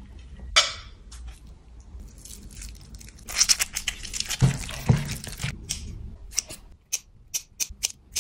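Kitchen food-prep sounds over a glass bowl: chopped vegetables tipped in, a lime squeezed by hand in a dense wet squishing stretch midway, then several crisp snips of kitchen scissors cutting a red chili near the end.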